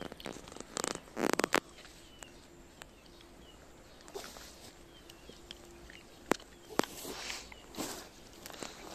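A Shiba Inu gnawing and crunching stock-boiled chicken carcass bones, in scattered clicks and short crackly bursts. The densest burst of crunching comes about a second in, and there are more bites between about six and eight seconds in.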